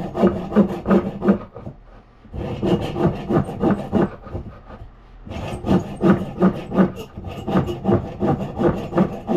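Hand saw cutting off the protruding wooden wedge at the top of an axe eye, to trim it flush with the head. Quick back-and-forth strokes in three runs, with short pauses about two and five seconds in.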